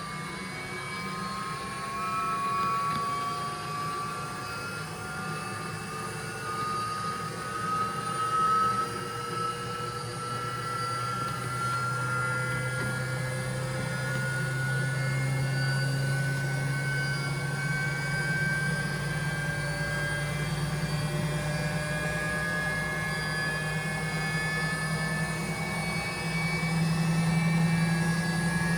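BEKO washing machine's drum motor whining during its service test, the pitch climbing slowly and steadily as the drum gathers speed.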